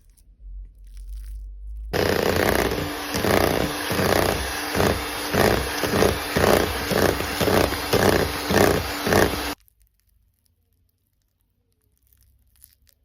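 Electric hand mixer whisking in a bowl, switched on about two seconds in and off about two seconds before the end. It gives a steady motor whine with a regular swish about twice a second as the beaters are worked around the bowl.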